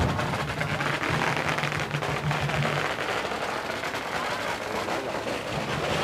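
Dense crowd hubbub mixed with a continuous crackle of firecrackers going off, over a low steady hum that drops out about halfway and returns near the end.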